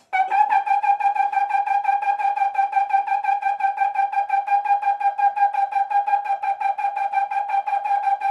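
Trombone playing one high note, a high G, over and over in fast tongued repeats on a single breath, as in a high-note endurance exercise.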